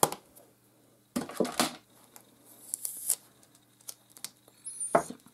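Short rustles, clicks and light knocks of craft supplies being handled and set down on a tabletop. There is one sharp click at the start, a rustling burst about a second in, a few faint ticks, and another burst near the end.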